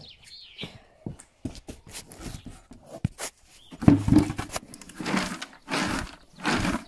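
A rubber feed bowl of horse pellets and chaff being handled at close range: clicking and rustling at first, then several louder scraping, rustling bursts in the second half.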